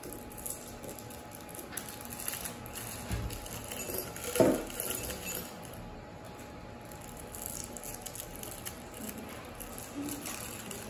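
Rockets candy rolls being unwrapped, the plastic twist wrappers crinkling, and the candies dropped into a tall drinking glass, clinking against it; the loudest clink comes about four seconds in.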